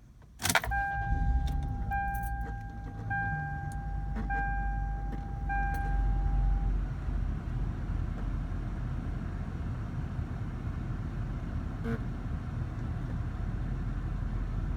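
Inside a 2000 Lexus GS300's cabin: a click, then a steady high tone pulsing about five times in a row over some six seconds, over the steady low hum of the running car and its AC fan.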